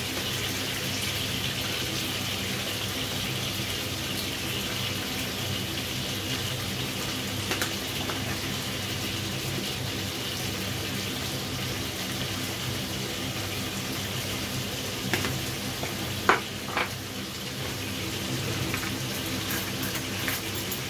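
Chicken pieces sizzling steadily in hot oil in a frying pan over a high gas flame, with a few light clicks in the second half.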